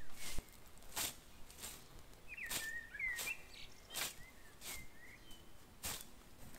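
Scythe blade swishing through tall grass in steady strokes, about eight sharp swishes roughly 0.7 s apart, each stroke cutting the grass. A bird chirps a few times in the middle.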